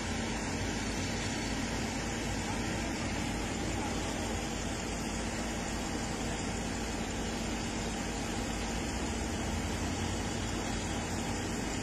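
Heavy diesel machinery running steadily, a constant unchanging drone with a low steady hum.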